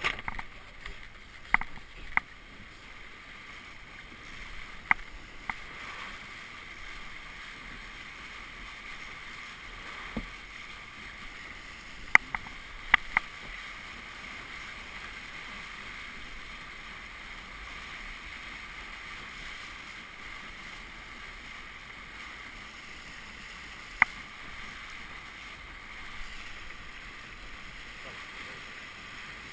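Steady rush and hiss of water streaming past the hull of a Melges 17 sailboat moving fast under sail. A few short, sharp clicks or knocks stand out over it, two about twelve and thirteen seconds in and one near twenty-four seconds.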